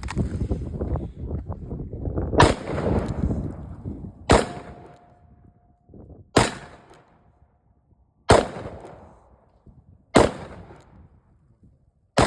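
Six gunshots fired one at a time, about two seconds apart, from ammunition sold as hot loads that the shooter finds tame. After three of the shots a thin ringing tone hangs on for over a second. Rustling handling noise comes before the first shot.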